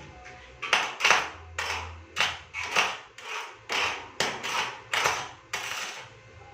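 A run of about a dozen sharp, noisy strokes, roughly two a second, starting under a second in and stopping near the end.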